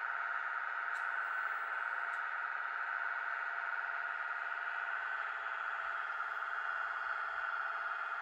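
Steady high whine of the electric drive motors and gearing of an RC model CAT 297D2 compact track loader as it drives off a tilt-deck trailer.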